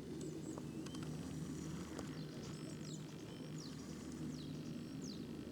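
Small birds chirping in short descending trills, several times over a few seconds, over a steady low hum.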